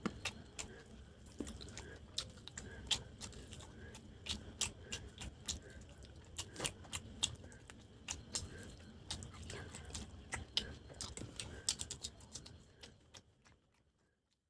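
Close-miked chewing of chicken curry and rice: irregular wet mouth clicks over a low rumble, fading out near the end.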